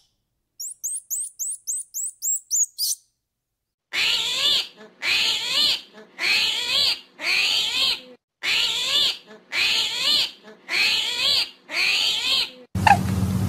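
Animal calls: a quick run of about ten short, high chirps, then after a pause a series of about eight harsh, repeated calls, each under a second long and evenly spaced.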